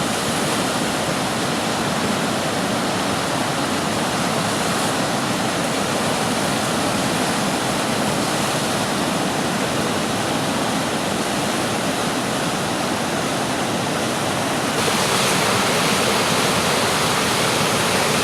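Whitewater rapids on the Ottawa River rushing steadily, with a slight step up in loudness about fifteen seconds in.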